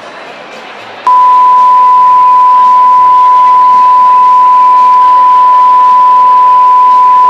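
Steady 1000 Hz broadcast line-up tone (Pegelton), a single unbroken pure beep that starts about a second in. It is the reference tone sent with colour bars so the receiving end can set audio levels on the feed.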